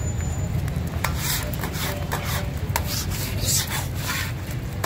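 A metal spatula scraping across a large flat griddle (tawa): a run of quick scrapes starting about a second in, over a steady low rumble.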